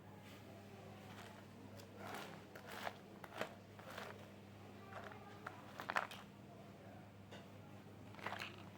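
Small plastic toy kitchen pieces clicking and tapping as they are handled and set down, in a handful of light knocks with the sharpest near the middle, over a steady low hum.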